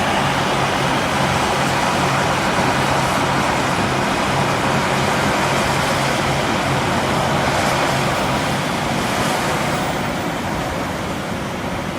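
Heavy diesel earthmoving machinery running steadily: the engines of the excavators and dump trucks. A low, even engine hum runs under a dense mechanical noise and fades about eight seconds in.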